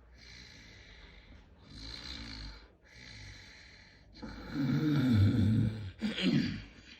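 A person snoring: a few fainter breaths, then a long, loud snore about four seconds in, followed by a shorter one near the end.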